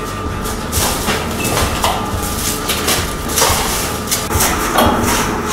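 Irregular knocks and metallic clanks over a steady low hum.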